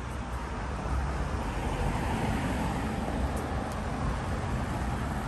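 Street traffic: a steady rumble of cars passing on a city street.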